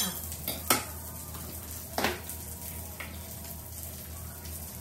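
Food sizzling steadily on a moo kata tabletop grill pan, with a few sharp clinks of utensils against the pan and dishes.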